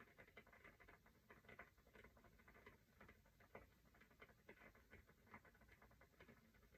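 Near silence with faint, irregular soft scratches and taps, several a second: a small eyeshadow brush stroking across the eyelid.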